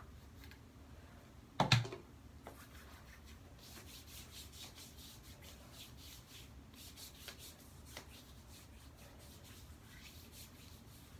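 A single knock a little under two seconds in, then soft, rapid rubbing strokes that go on to the end.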